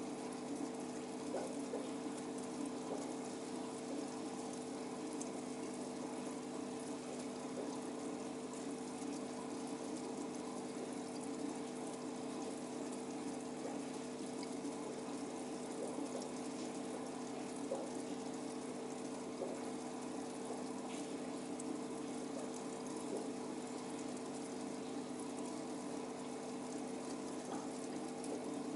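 Aquarium filter running: a steady low hum under a continuous wash of bubbling, trickling water with faint scattered ticks.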